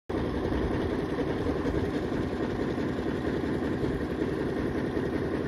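The boat's Stirling engine running steadily as the boat cruises under way.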